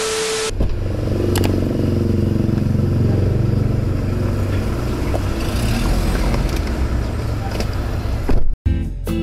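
A short burst of TV-static hiss at the start, then steady car noise with scraping and rustling as someone climbs into a car's back seat, with a few clicks.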